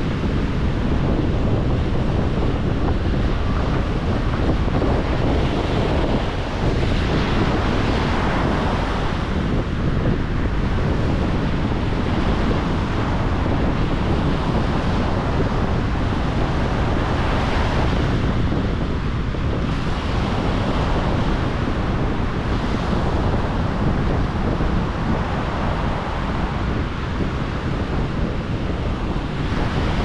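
Atlantic Ocean surf: a continuous wash of breaking waves, swelling briefly every several seconds as a wave breaks.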